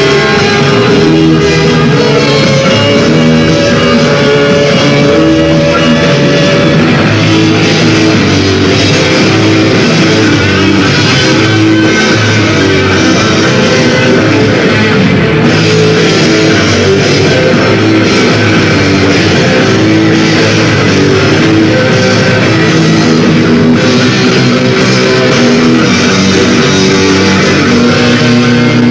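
Rock band playing live: electric guitars and drums in a loud, continuous instrumental passage with no singing.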